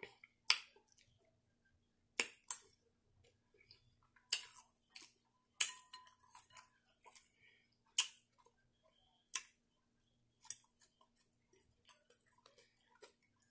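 Sharp, irregular clicks and crunches about a second or more apart: a metal fork tapping and scraping in a glass salad bowl, and salad with croutons being chewed.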